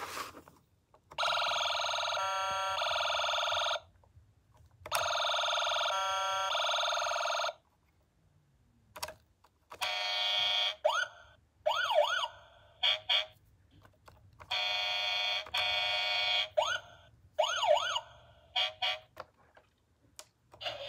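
Electronic siren sound effects from a Nikko Road Rippers toy fire truck's small built-in speaker, set off by pressing its sound button. They come in a series of bursts, most two to three seconds long with short gaps between, some with rising and falling wails, and the sound is thin with no low end.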